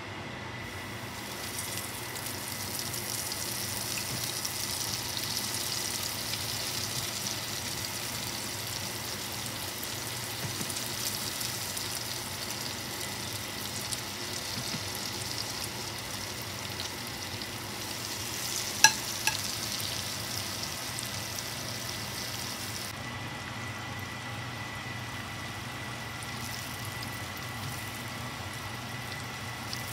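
Flour-coated cauliflower florets sizzling as they shallow-fry in oil in a wok, the sizzle swelling about a second in and easing a little in its top end after about two-thirds of the way through. Two sharp clicks come close together a little past the middle, over a steady faint high tone.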